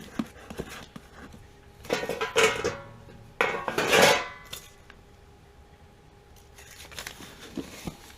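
Metal parts or tools clattering and clinking as they are handled, with two louder clatters that ring briefly, about two and about four seconds in, then a few light clicks near the end.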